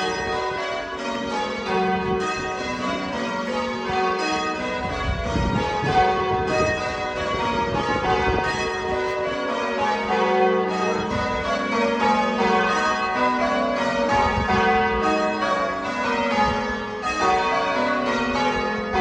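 Church bells ringing, many bells at different pitches striking one after another in quick succession, their tones overlapping. A low rumble comes in about five seconds in.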